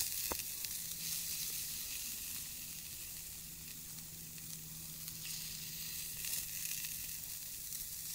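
Burger patties sizzling on a flat steel grill over a wood fire, a steady frying hiss with a few sharp pops right at the start. A faint steady low hum runs underneath from about a second in.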